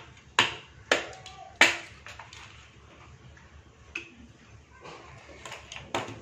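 A plastic ice cube tray cracking three times as the cubes are popped loose, then a few lighter knocks as ice cubes drop into a glass.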